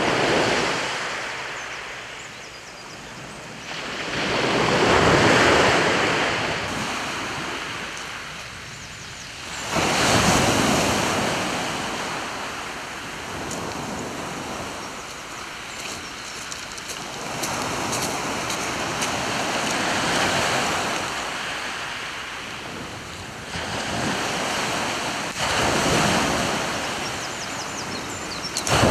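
Surf breaking and washing up a shingle beach, swelling and fading in long surges every few seconds.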